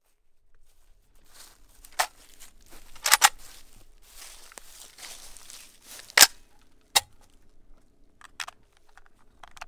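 Footsteps crunching over dry grass, then a PSAK-47 rifle being handled: several sharp metallic clacks, the loudest about three and six seconds in, and the magazine being pulled out of the rifle near the end.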